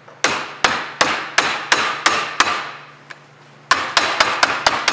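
A mallet striking an end cap down onto the edge of an office cubicle panel to seat it. Seven even blows come about three a second, then after a pause of about a second a quicker run of blows follows.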